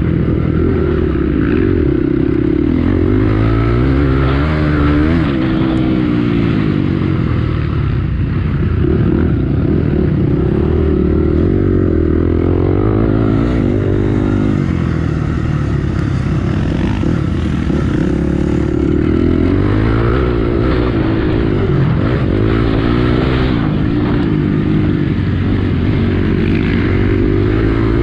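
Honda CRF250X enduro bike's single-cylinder four-stroke engine running hard, heard from on board: the revs climb and drop again and again as the bike accelerates, changes gear and backs off through the track's corners.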